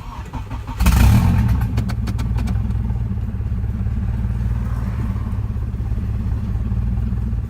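Turbocharged Honda K24 four-cylinder engine cranking briefly on the starter, catching under a second in with a loud flare, then idling steadily. It runs without its downpipe fitted, so the exhaust is open straight after the turbo.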